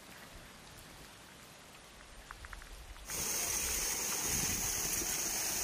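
Faint quiet with a few small clicks, then about three seconds in, the sudden steady rush and splash of a strong jet of water gushing out onto the ground.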